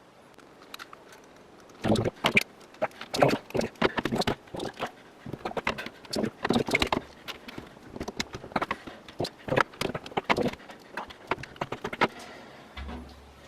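Irregular clicking and knocking of a screw, washer and tool being worked by hand into a rubber doorstop, many small taps starting about two seconds in and easing off near the end.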